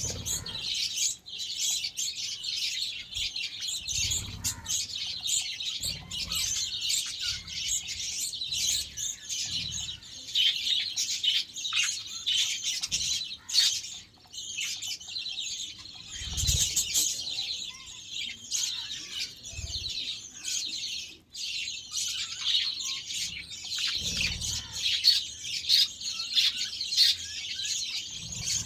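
A flock of budgerigars chirping and warbling together in continuous overlapping chatter, with occasional soft thumps or rustles of wings or movement in the cage.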